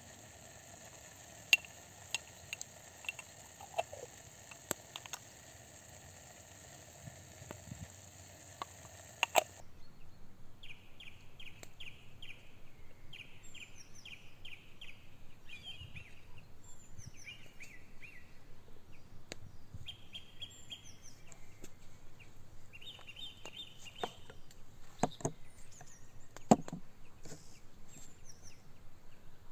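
Scattered knocks and clicks over a steady hum. About a third of the way in the sound changes to small birds singing in repeated quick chirping trills, with a few louder knocks near the end.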